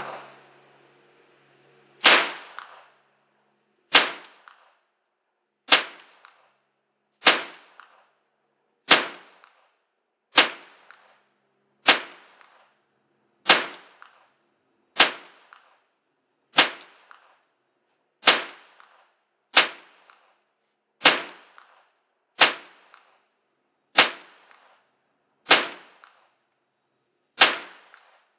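Smith & Wesson M&P15-22 pistol firing .22 LR in slow semi-automatic fire: seventeen single sharp cracks, about one every second and a half, each followed by a short echo.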